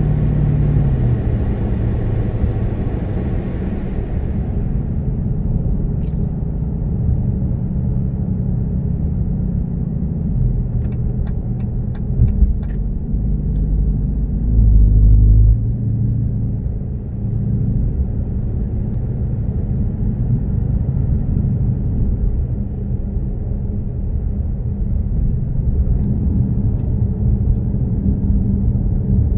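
Dodge Challenger R/T's V8 engine running steadily under way, heard from inside the cabin together with road noise. About fifteen seconds in, the engine gets briefly louder under throttle, and a few light ticks come just before.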